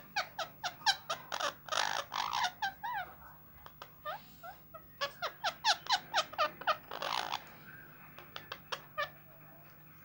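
Indian ringneck parakeets calling in quick runs of short, squeaky chirps, each falling in pitch. Two busy bouts with a lull about four seconds in, then a few scattered chirps near the end.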